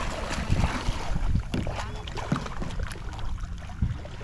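Wind rumbling on the microphone over open water, with scattered small knocks from a kayak.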